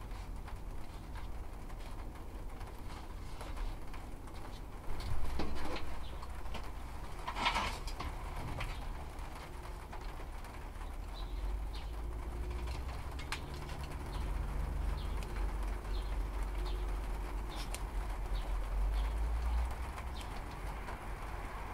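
A dove cooing in the background over a steady low rumble, with a few rustles and taps in the first half from pots and cuttings being handled.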